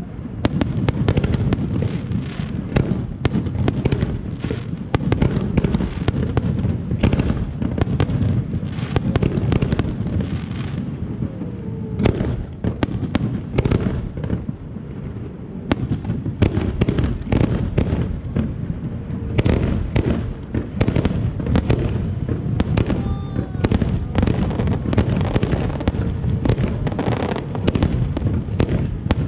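Aerial fireworks display: a dense, continuous barrage of shell bursts and crackles over a deep rumble, thinning briefly about halfway through before building again.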